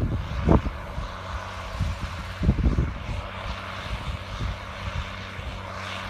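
John Deere 7700 tractor's six-cylinder diesel engine working steadily under load while pulling a seven-furrow reversible plough: a steady low drone, with a few gusts of wind buffeting the microphone.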